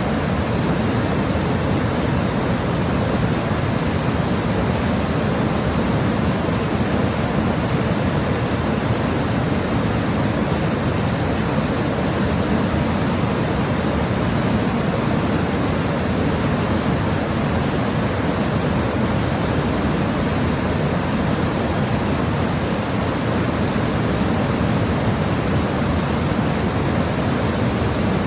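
River water rushing over rocks, a steady full rushing sound with no breaks.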